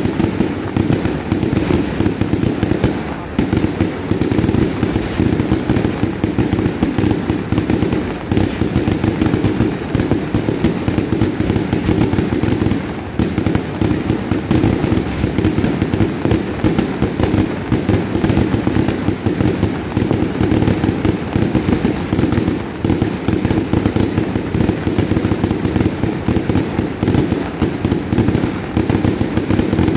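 Continuous barrage of aerial fireworks: rapid bangs and crackling many times a second, easing briefly about three seconds in and again around thirteen seconds.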